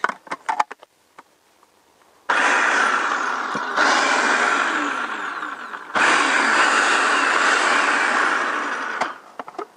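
Electric food processor chopping pesto ingredients (cheese, oil and nuts) in two runs of about three and a half and three seconds, after a few light clicks. Each run stops abruptly.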